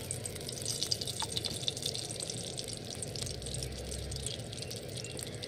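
Mustard oil poured from a small clay pot into a hot karai, the oil crackling faintly with many small ticks as it heats, busiest over the first few seconds.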